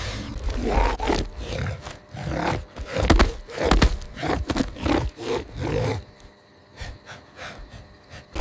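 Spotted hyena snarling and growling in a run of short, irregular bursts. It dies down to a few faint clicks for the last two seconds or so.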